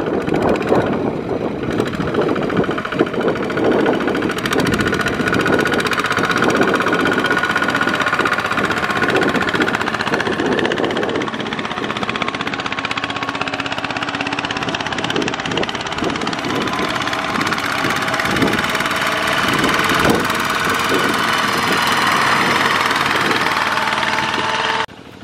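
Single-cylinder Kubota RT120 diesel of a two-wheel walking tractor running under load with a rapid, steady knock while pulling a loaded trailer through mud. In the last few seconds it gets louder as the tractor comes close, its wheels splashing through muddy water, and the sound cuts off suddenly just before the end.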